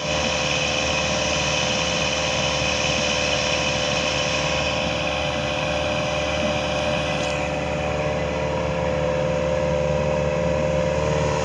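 Volvo Penta 3.0-litre four-cylinder 140 hp marine engine running steadily on the water, on test after its cracked block was patched. A higher hiss in the sound drops away about seven seconds in while the engine note holds steady.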